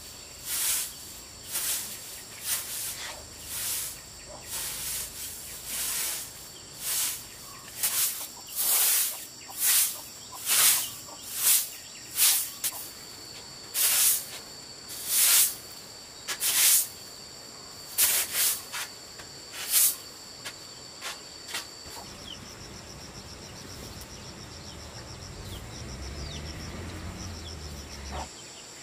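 Insects trilling steadily in the background, over a series of short, sharp hissing or swishing strokes, roughly one a second, that stop about two-thirds of the way through. A faint low hum rises near the end.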